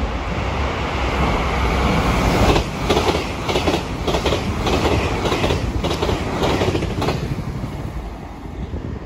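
A Taiwan Railways train passing close by. The rush of the train builds up, then its wheels clack over the rail joints in a steady run of about two beats a second for some four seconds, and the sound dies away near the end.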